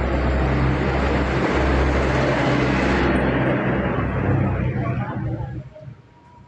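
A motor vehicle's engine running with a steady low hum and broad rushing noise, fading away about five seconds in.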